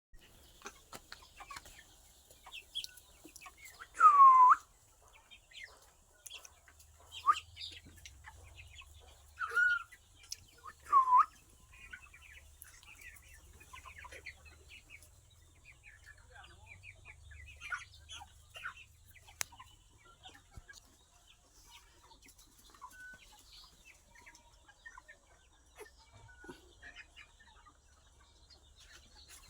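Chicks peeping. Four loud short calls fall in pitch, the first about four seconds in and the loudest, then three more over the next seven seconds, with soft scattered peeps and small clicks throughout.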